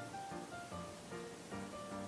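Instrumental background music, a melody of short held notes over a regular low beat.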